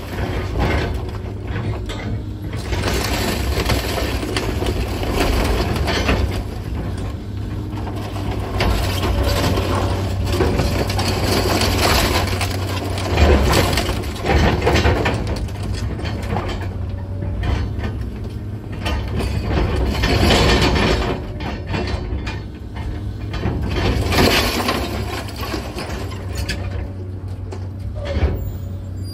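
Komatsu 200's diesel engine running steadily under load, with irregular crunching and cracking of demolition debris every few seconds, the loudest about halfway through.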